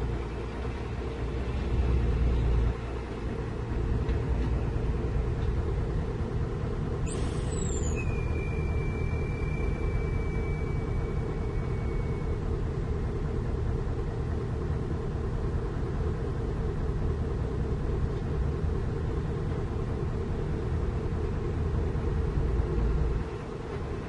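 Diesel dump truck engines running with a steady low rumble, louder in the first few seconds, as the trucks move about. About seven seconds in, a high squeal slides down in pitch, then holds for about four seconds.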